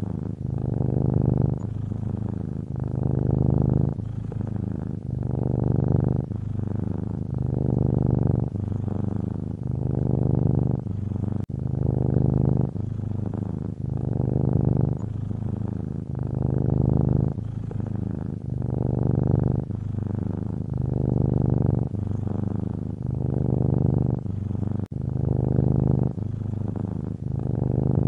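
Domestic cat purring steadily and close, the low rumble swelling and easing with each breath in and out, a full cycle about every two and a half seconds.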